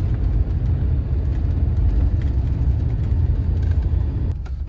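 Camper van driving, heard from inside the cab: a steady low rumble of engine and road noise that drops away near the end.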